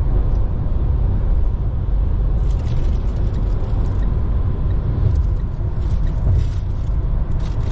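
Car driving along a road, heard from inside the cabin: a steady low rumble of engine and tyre noise, with a few faint light clicks partway through.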